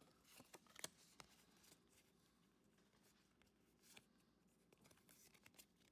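Faint handling of Pokémon trading cards: soft slides and light ticks as the cards from a freshly opened booster pack are fanned and sorted.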